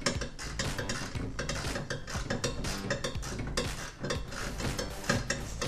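Quarter-inch drive ratchet with a 10mm deep socket clicking in quick back-and-forth strokes as it runs lock nuts onto studs inside a van door, with small metal clinks against the door panel. The clicking pauses briefly about four seconds in.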